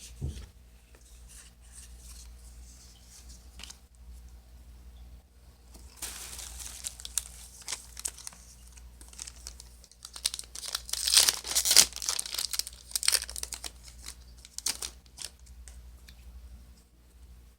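A Yu-Gi-Oh booster pack's wrapper being torn open and crinkled by hand, with quiet handling at first and the crackling growing loudest about ten to thirteen seconds in.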